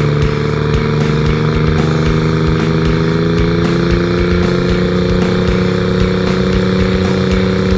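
Twin-turbocharged Honda BF225 V6 outboard motor running steadily. Its engine speed creeps up a little about halfway through, then holds.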